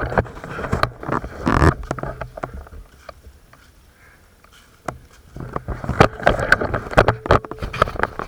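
Rustling and scuffing with scattered sharp clicks, like clothing and gear rubbing close to a worn camera's microphone as the wearer moves. It is busy for the first three seconds, eases off for about two seconds, then picks up again.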